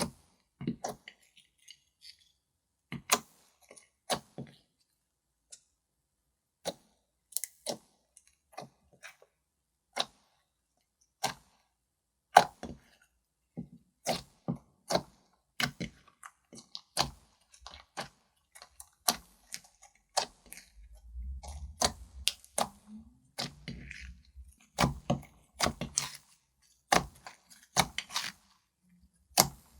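Slime being worked by hand, giving irregular sharp clicks and pops as it is pressed and pulled. The clicks come further apart at first, then faster and denser about two-thirds of the way through, with a low rumble under them for a few seconds.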